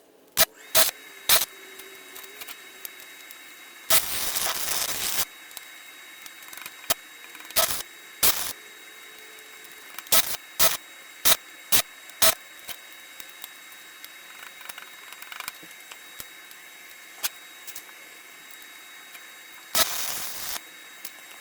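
Stick welding with 1/16-inch rods on thin 16-gauge steel square tube, done as short bursts to fill a gap: sharp arc-strike crackles scattered through, with two longer spells of arc crackle lasting about a second, one about four seconds in and one near the end.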